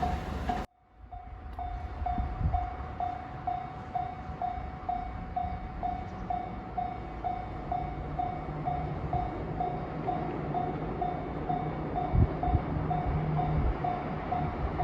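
Japanese level-crossing warning bell ringing steadily, about two dings a second. In the second half a low rumble from the oncoming train builds beneath it.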